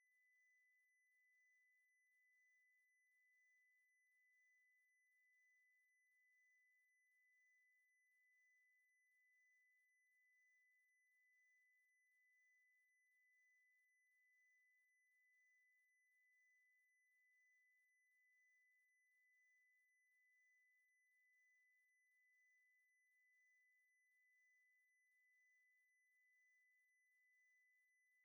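A steady pure test tone at about 2 kHz from a hearing test, played very faintly, its loudness swelling gently about once a second.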